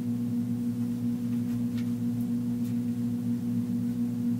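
Background music: a steady, sustained chord of low held tones with no beat.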